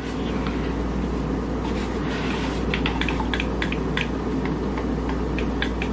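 Buttons on a new Xbox controller clicking as they are pressed, in quick runs of short sharp clicks, over a steady low hum.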